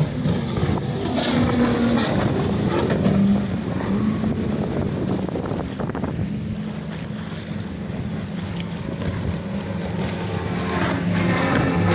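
Race powerboats' engines droning as the boats pass at speed, the pitch shifting slightly, with heavy wind buffeting the microphone.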